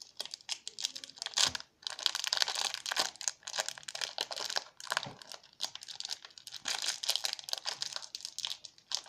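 Small clear plastic packet crinkling and tearing as it is handled and opened by hand, a dense run of crackles with a short pause about two seconds in.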